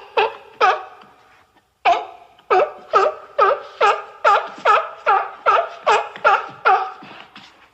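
Rapid barking seal calls, built from seal and sea lion recordings to stand in for the extinct Caribbean monk seal. Two barks come first, then a pause of about a second, then a steady run of short barks, each dipping in pitch, about two and a half a second.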